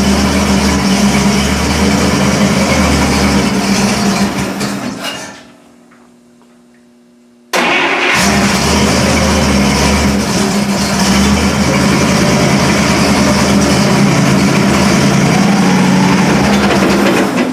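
1955 Buick 322 Nailhead V8 running steadily. It winds down and stops about five seconds in; about two seconds later it is running again, steadily, to the end.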